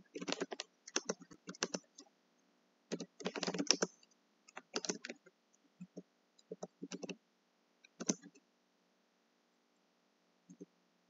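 Typing on a computer keyboard: quick runs of keystrokes in short bursts with brief pauses between them, stopping for about two seconds near the end.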